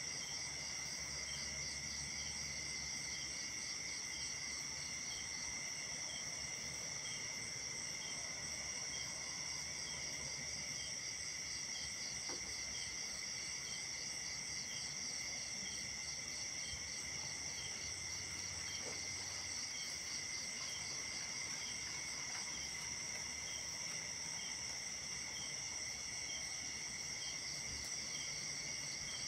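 Night-time insect chorus: a steady, high-pitched layered drone with a short chirp repeating at regular intervals and a faster pulsing trill coming and going.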